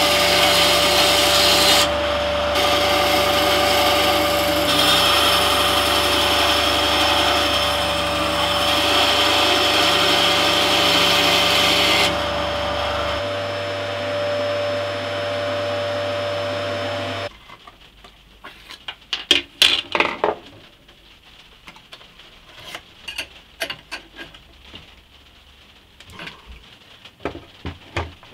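Benchtop band saw running and cutting oak: a steady motor tone under a dense, bright cutting hiss. About twelve seconds in the hiss drops and the saw runs on more quietly until the sound cuts off abruptly about seventeen seconds in. Scattered light clicks and knocks follow.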